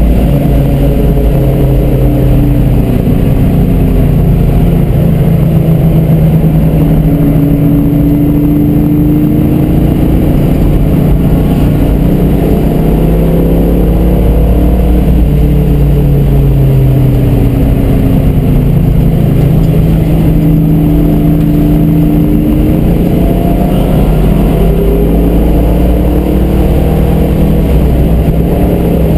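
1967 Shelby GT350's 289 V8 at speed on track, heard from inside the cabin, its pitch rising and falling over and over as it accelerates and eases off.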